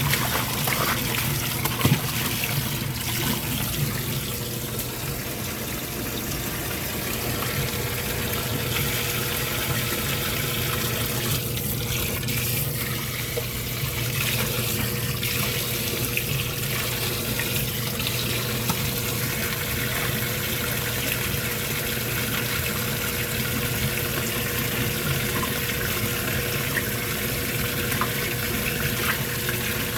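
Kenmore washing machine running with water steadily flowing in the tub, over a low steady hum.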